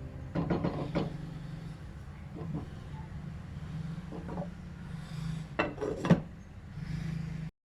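A cooking utensil scraping and rubbing against a pot of sauce in a few short strokes, loudest near the end, over a steady low hum.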